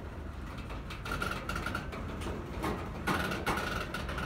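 Long freight train's wagons in a rail yard: a steady low rumble under irregular metallic knocks, with a thin high squeal heard twice, about a second in and again near the end.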